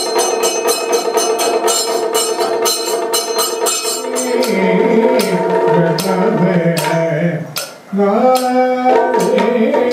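Kathakali accompaniment music: rapid percussion strokes over a steady drone for the first few seconds, then a low voice singing a wavering melody with sparser strokes, broken off briefly near the end.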